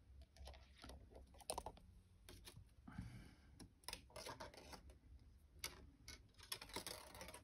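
Faint, irregular small clicks and brief scratchy rubbing of 22-gauge copper wire being pulled by hand through a wire-wrapped cuff bracelet.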